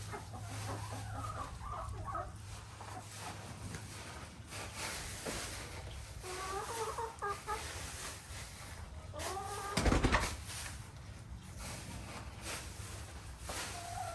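Chickens clucking in short bursts, with one louder call about ten seconds in.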